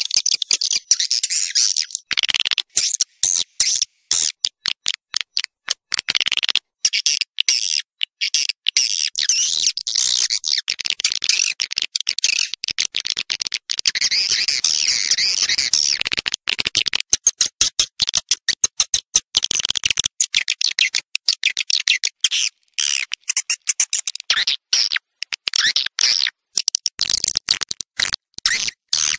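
Swiftlets twittering and chirping in a dense, high chorus. This is a swiftlet call recording of the kind played to lure swiftlets into a nesting house. The sound drops out for many very short moments throughout.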